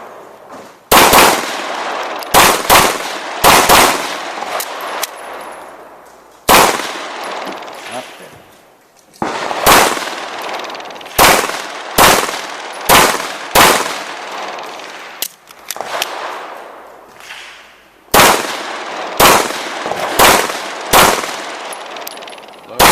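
Pistol shots fired in quick pairs and small groups, about seventeen in all, with pauses of a second or more between groups. Each shot has a short echoing tail.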